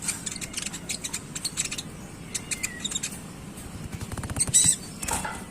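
Konin songbird twittering in quick, scratchy chirps (ngeriwik), with a short whistled note partway through. A fast low trill follows, then the loudest sharp burst of chirping near the end.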